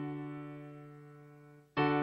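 Background music: slow piano chords. One chord rings and fades away, and a new chord is struck near the end.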